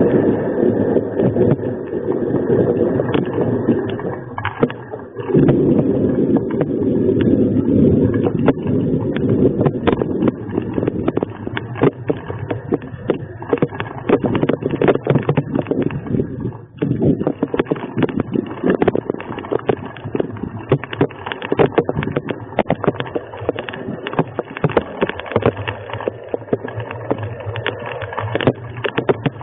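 Storm wind and heavy rain, with the rain striking a hard surface in dense, irregular ticks. The wind surges strongly in the first few seconds and again from about five to eight seconds in, then eases, while the ticking grows denser in the second half.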